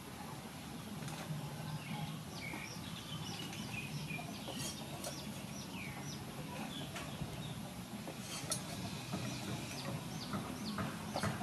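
Birds chirping: a run of short, quick chirps, each sliding downward in pitch, thickest in the middle and latter part, over a steady low background rumble. A few light knocks sound near the end.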